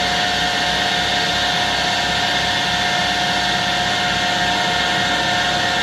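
Table saw motor and blade running steadily with a constant whine. It sounds a bit noisy, which the owner suspects is the bearings or something inside the motor.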